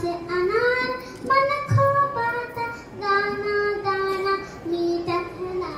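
A young boy singing into a microphone, with a string of held notes that step up and down in pitch and break between short phrases.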